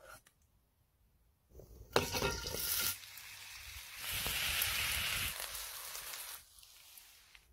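Diced chicken and bacon sizzling as they hit a hot cast-iron skillet over a wood fire: a sharp burst of sizzle about two seconds in, then a longer, steady sizzle from about four seconds that stops after six.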